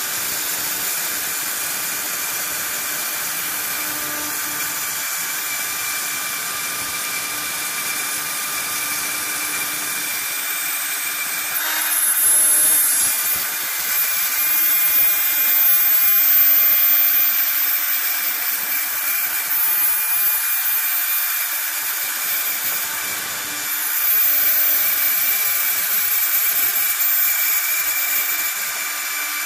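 CNC milling machine cutting aluminium checker plate: the spindle's steady high-pitched whine mixed with the hiss of the cutter in the metal. It gets louder twice, about twelve seconds in and again about twenty-four seconds in, each time for several seconds.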